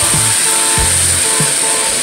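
Large-scale model trains running on a layout: the locomotives' electric motors whirring and wheels rolling on the metal track, with steady tones sounding over it and breaking off now and then.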